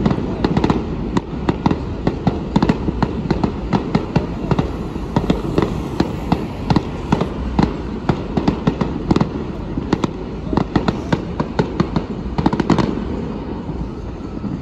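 Fireworks display going off: a rapid, irregular string of sharp bangs and crackles over a continuous low rumble, easing off near the end.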